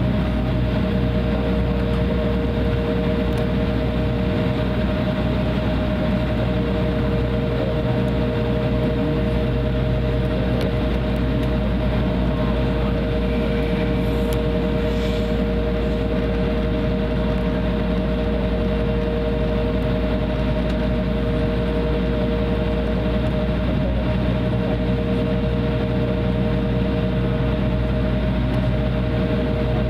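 Cabin noise inside an Embraer 175 taxiing on the ground, its GE CF34-8E turbofan engines running at low thrust: a steady low rumble with a steady two-note whine.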